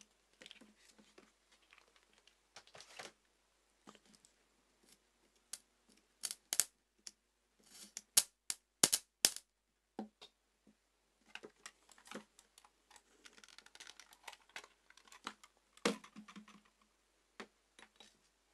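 Irregular clicks and taps from hands handling crocodile clips and thick copper-ended cables on a tabletop. A run of loud, sharp snaps comes about six to nine seconds in.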